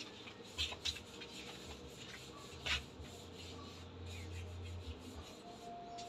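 Faint scuffs and clicks of flip-flops stepping on a dusty concrete floor, over low room noise with a faint low hum.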